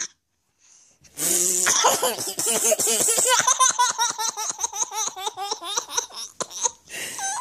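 Toddler's long belly laugh: a rapid run of high-pitched laughs that starts about a second in, goes on for about five seconds, then trails off into a few short laughs near the end.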